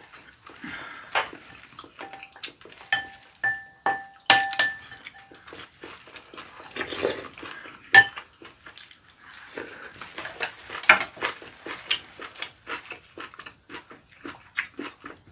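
Plastic chopsticks clicking, scraping and stirring against glass bowls and dishes, with a few short clear ringing tones in the first half as a glass bowl is struck. Small eating clicks follow toward the end.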